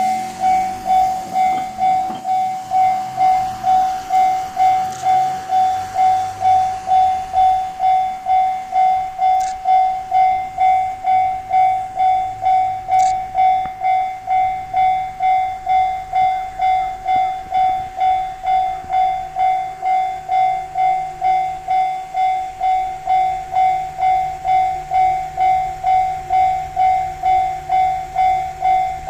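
Japanese railway level-crossing alarm ringing: a single high electronic tone struck over and over, about twice a second, steady and unchanging.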